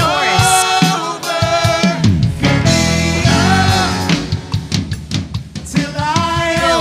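Live worship band music: a voice singing over drum kit and a five-string electric bass playing low notes, with a few sliding bass notes about two seconds in.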